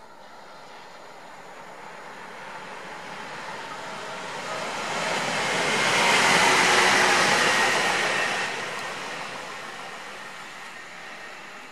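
Bombardier Traxx DC3 electric locomotive running light past: the rumble of its wheels on the rails builds to a peak about six seconds in and fades as it moves away, with a faint whine near the peak.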